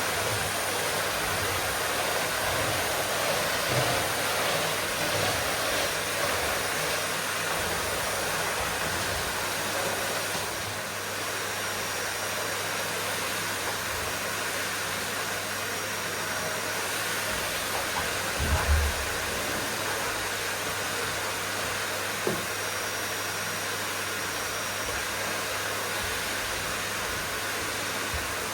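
Vacuum cleaner running steadily: an even, dense whoosh with a low hum underneath. A brief low thump about two-thirds of the way in, and a small click shortly after.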